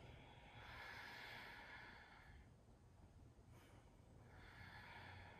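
Faint breathing close to the microphone: one long breath lasting about two seconds, then another beginning near the end.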